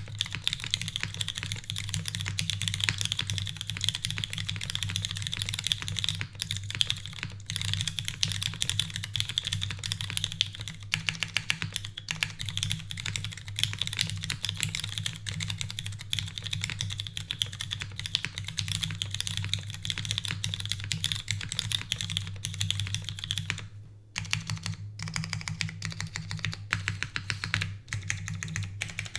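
Continuous fast typing on a Lin Whale custom mechanical keyboard: lubed and filmed Cherry MX Brown tactile switches in a full aluminium plate with no foam dampening, under GMK keycaps. The typing stops briefly about 24 seconds in, then carries on.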